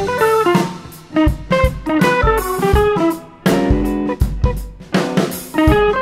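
Background music: a plucked guitar line of quick notes over a drum kit keeping a steady beat.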